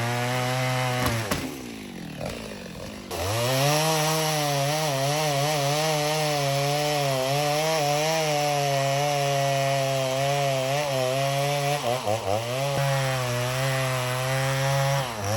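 Stihl MS290 two-stroke chainsaw at full throttle cutting through wood, its pitch wobbling under load. It drops back about a second in, revs up again about three seconds in, and dips briefly near twelve seconds.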